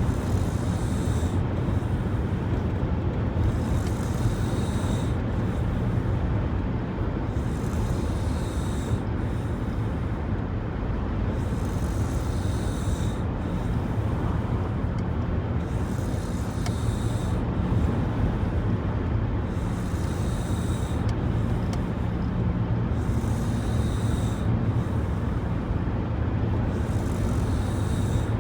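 A person snoring, one breath about every four seconds with a hiss on each breath, over a steady low drone.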